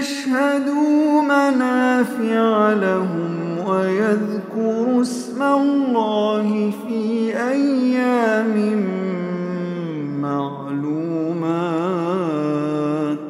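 A man's voice reciting the Quran in Arabic in the melodic tajweed style. The long drawn-out phrases are separated by brief breaths, the pitch sinks step by step, and a wavering ornament comes near the end.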